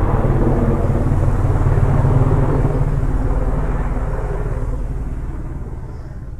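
Aircraft engine noise, a heavy low rumble that holds steady, then fades away over the last few seconds.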